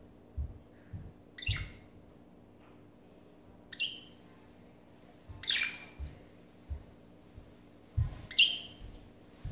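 Budgerigars chirping: four short, high chirps spread over several seconds, with soft low thuds in between.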